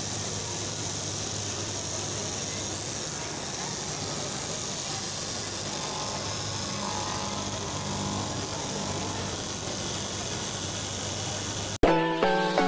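Electric straight-knife cloth cutting machine running with a steady hum while its upright reciprocating blade cuts through a tall stack of fabric layers. About a second before the end it cuts off abruptly into a short bell-like musical jingle.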